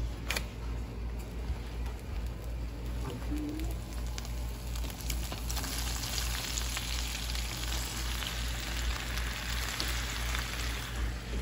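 Frying sizzle in a hot skillet as tomato wedges and sliced onion are dropped into the fat left from frying steaks. The sizzle grows stronger from about five seconds in, as the vegetables land in the pan.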